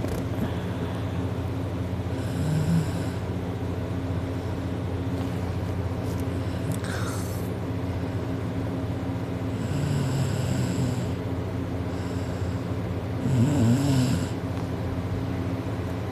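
A man snoring heavily in his sleep, about four snores a few seconds apart, the loudest about thirteen seconds in, over a steady background hum.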